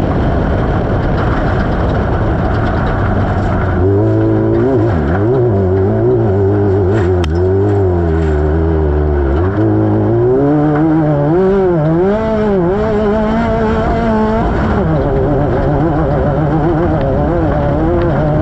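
Onboard sound of an off-road race vehicle at speed: a loud, steady rush of wind and terrain noise. Over it the engine revs rise and fall again and again with the throttle, most clearly from about four seconds in until near fifteen seconds.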